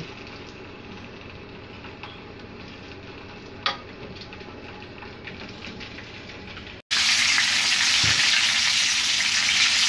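Spring onions sizzling as they brown in hot bacon fat in a frying pan, with a single light tap a little under four seconds in. After a brief break just before seven seconds the sizzling comes back much louder.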